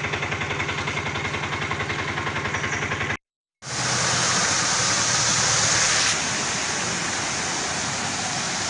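An engine idling with a steady, rapid throb. After a brief dropout about three seconds in, a loud rushing of floodwater takes over.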